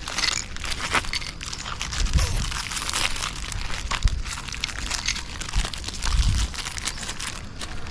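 Stray dogs crunching biscuits, with a dense run of small cracks and crinkles throughout and a couple of dull thumps about two and six seconds in.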